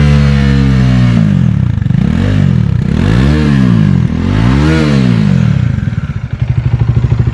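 2019 Bajaj Dominar 400's 373 cc single-cylinder engine being revved on the stand, heard through its exhaust. The revs fall away at the start, then there are three quick throttle blips, each rising and dropping back. Near the end it settles into a steady, pulsing idle.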